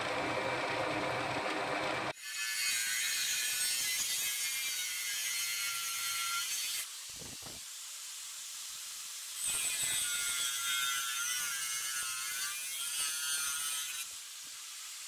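Drill press motor running for about two seconds, then an angle grinder with a thin cut-off disc cutting through a thin metal strip: a loud, high-pitched grinding whine that eases off twice as the disc comes off the metal.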